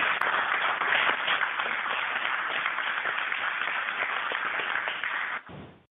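Applause from the control team after first-stage separation is called, heard through the thin, narrow-band broadcast audio loop. It is steady and cuts off abruptly near the end.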